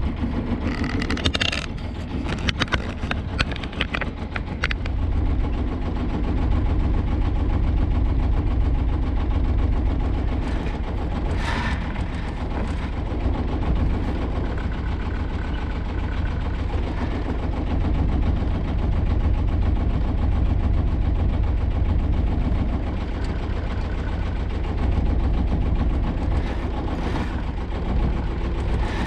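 A sailboat's auxiliary engine runs steadily as the boat motors slowly under power, a continuous low rumble. A cluster of short clicks comes in the first few seconds, and a single sharp knock about eleven seconds in.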